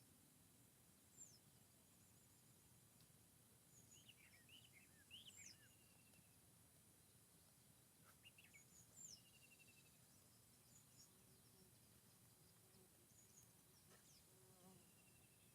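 Faint, sparse birdsong in forest ambience: short chirps and a few brief trills. They come in small clusters about four seconds in, again around eight to nine seconds, and near the end, over a low, even background rumble.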